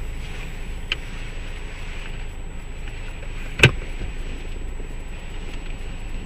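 Steady low rumble of a car idling, heard from inside the cabin through an open window. A faint click about a second in and a single sharp knock about three and a half seconds in.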